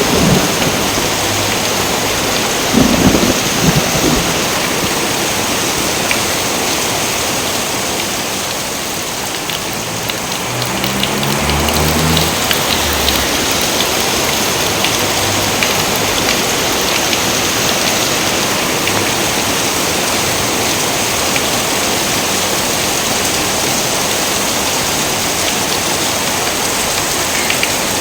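Heavy rain falling steadily, with a rumble of thunder about three seconds in.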